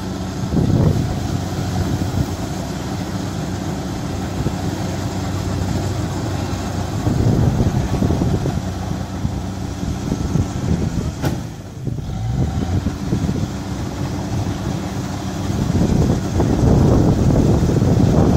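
Rice combine harvester running steadily as it cuts and threshes: a constant engine drone under a rushing noise that swells louder a few times.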